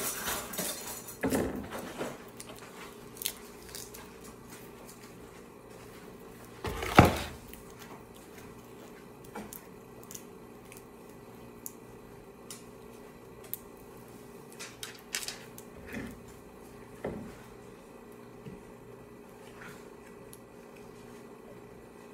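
Plastic Ultraman action figure being handled and posed: scattered small clicks and rubbing of plastic parts, with one louder knock about seven seconds in.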